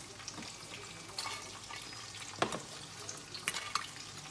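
Oil frying with a steady hiss and scattered crackles, with a few sharper clicks, the loudest about two and a half seconds in.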